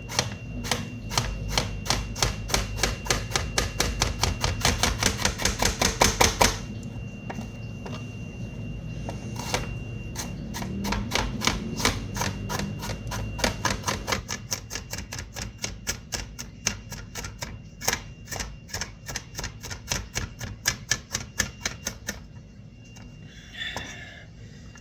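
Kitchen knife chopping an onion on a cutting board: rapid, even strokes at about five a second for the first six seconds, then slower, more spaced chops that stop a couple of seconds before the end.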